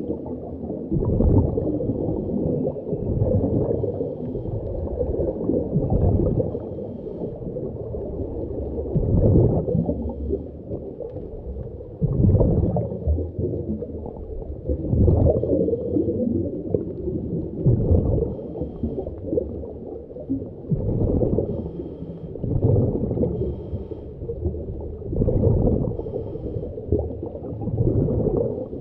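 Muffled underwater sound of a diver breathing, with gurgling bubble surges about every three seconds.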